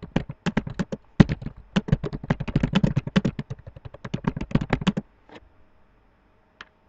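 Typing on a computer keyboard: a quick, uneven run of key clicks that stops about five seconds in, followed by a couple of single clicks.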